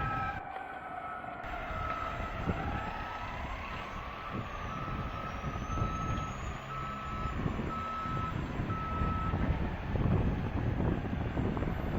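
Fire truck siren winding down and then rising again, over the low rumble of truck engines. Through most of it a vehicle's reverse alarm beeps steadily, about one and a half beeps a second, stopping a few seconds before the end.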